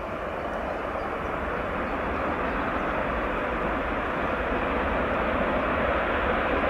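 Boeing 747 cargo jet's four engines running during the landing roll, with reverse thrust blowing up dust; a steady rushing jet noise that grows slowly louder as the aircraft comes nearer.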